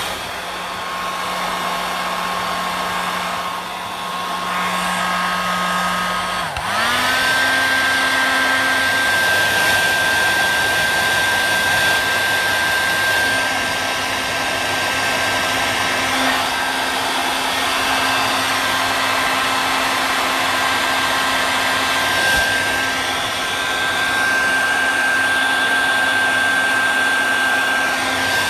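Hair dryer running steadily, drying wet watercolour paint on paper. About six and a half seconds in its whine dips briefly, then rises to a higher pitch and runs louder and steady.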